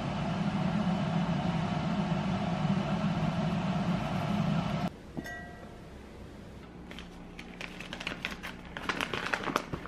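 A steady hum from a kitchen appliance cuts off suddenly about five seconds in, followed by a brief electronic beep. From about seven seconds in, a plastic packet rustles and crinkles as it is handled.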